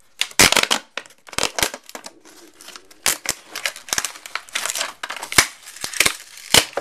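Plastic packaging crinkling and rustling as it is handled, in irregular sharp crackles.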